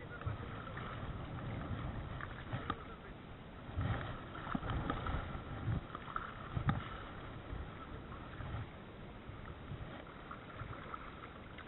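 Shallow seawater sloshing around a wading angler's legs, with wind on the microphone and the whir of a spinning reel's handle being cranked through a retrieve. A few louder splashes or knocks come around the middle.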